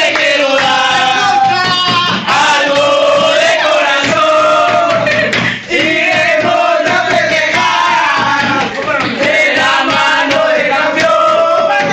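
A group of men singing a chant together, holding long notes.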